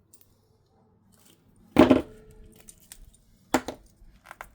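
A loud sharp clack about two seconds in, then a second clack and a few light clinks near the end: hand tools and small wiring parts handled on a workbench while relay plugs are cut off headlight wiring.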